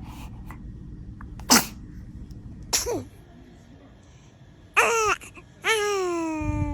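Newborn baby sneezing once, a sudden burst about a second and a half in, then fussing with short cries that fall in pitch, two of them near the end.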